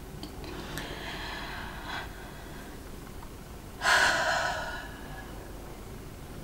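A woman breathing in, then letting out a long, heavy sigh about four seconds in.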